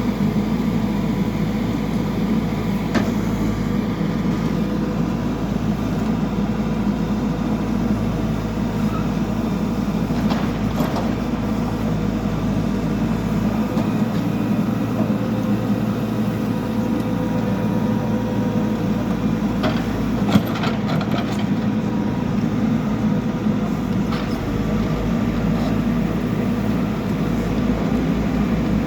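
Backhoe loader's diesel engine running steadily under working load, with a few short metallic knocks about a third of the way in and again about two-thirds in.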